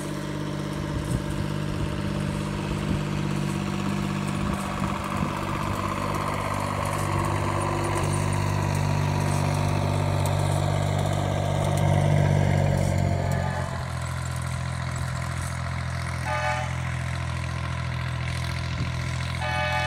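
Plymouth switcher locomotive's engine running steadily as it moves a small train, growing louder until about twelve seconds in. The sound changes abruptly soon after, then settles into a steadier, quieter engine note. A steady pitched tone sounds briefly near the end.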